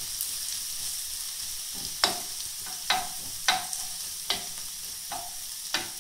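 Diced onion and grated carrot sizzling steadily in a frying pan, sweated gently rather than fried hard. A metal utensil stirring them clicks against the pan about six times from about two seconds in.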